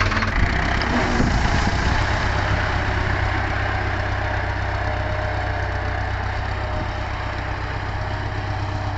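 Vintage farm tractor's engine running steadily at idle.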